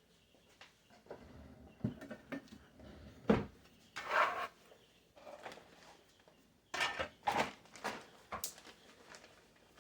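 Kitchen handling sounds: a few sharp knocks and clunks, with short bursts of rustling, as things are picked up and set down.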